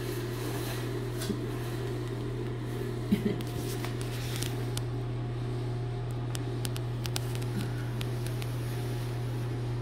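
Steady low mechanical hum, like a fan or appliance running in a small room, with scattered light clicks and a couple of knocks about three seconds in as the wire live trap is handled.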